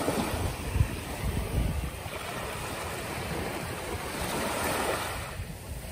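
Small waves washing up onto a sandy beach, a steady hiss of surf that swells about four seconds in. Wind buffets the microphone with low rumbles during the first couple of seconds.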